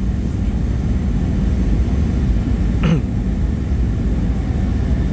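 Steady low rumble of a Boeing 737-800's engines and rushing airflow heard inside the cabin on short final approach, moments before touchdown. About three seconds in, a brief human throat sound, like a throat clearing, cuts through.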